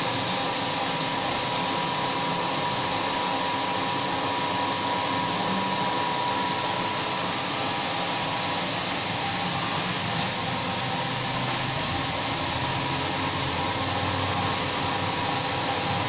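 Single-disc rotary floor scrubber running steadily: its electric motor's hum with a few steady tones, over the hiss of the pad scrubbing a stone floor.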